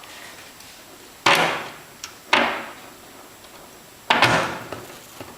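Three sudden knocks, each tailing off over about half a second, from hands working a bolt out of a stack of aircraft brackets and spacers while a second bolt is pushed in behind it.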